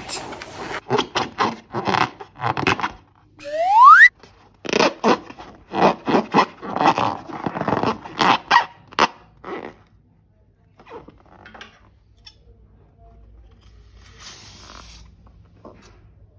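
Rubber balloons being squeezed and rubbed by hand: a quick run of short squeaks and scrapes, with one rising squeal about three and a half seconds in, then quieter, sparse handling sounds after about ten seconds.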